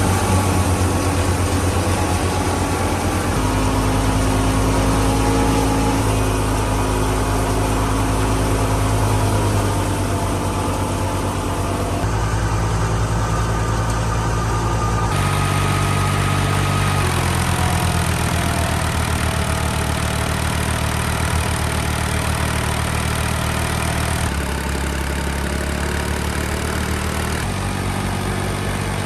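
Tractor engine running steadily under load while it drives a wheat thresher, a continuous low mechanical drone. The sound shifts abruptly in pitch and character several times.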